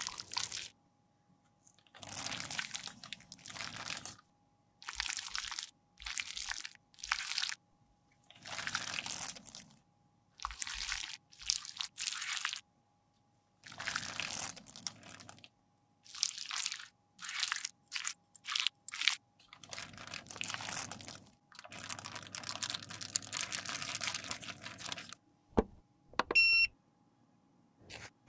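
Thin metal spatula scraping creamy concealer out of a NARS concealer tube and across a plastic sheet: repeated crisp scraping strokes, each one to two seconds long, with short pauses between. Near the end come a sharp click and a brief high squeak.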